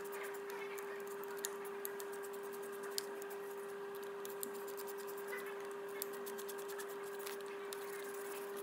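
Hand ratchet on a long Torx socket extension clicking faintly and irregularly as the engine-top screws are undone, over a steady hum.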